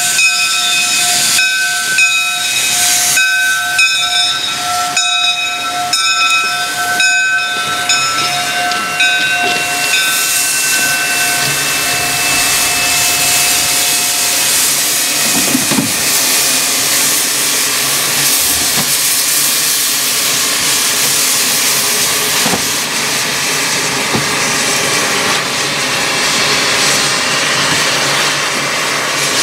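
Two-foot-gauge Forney steam tank locomotive, WW&F No. 9, hissing steam as it moves slowly. For the first ten seconds or so a steam whistle of several steady tones sounds over the hiss in short pulses, then fades out and a steady steam hiss goes on.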